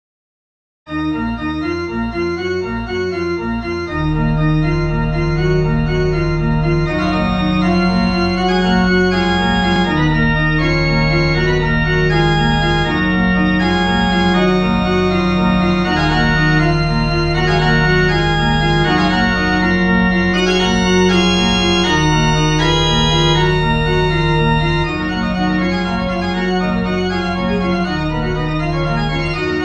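Organ playing a short, fast piece in D minor. Quick running lines move over long held bass notes that come in about four seconds in and change every few seconds.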